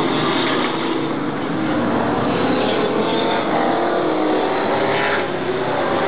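Stock cars racing on an oval track, their engines running hard with the pitch rising and falling as the cars go by, one passing close.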